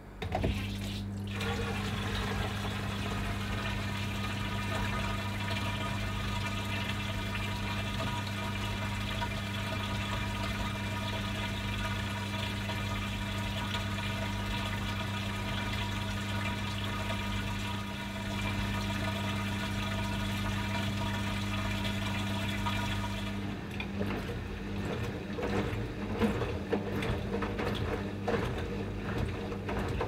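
AEG 8000 Series Lavamat washing machine (L8FEC966R) with its pump humming steadily and water running while the drum stands still. About 23 seconds in the pump stops and the drum starts turning, the wet laundry tumbling with irregular soft knocks and swishes.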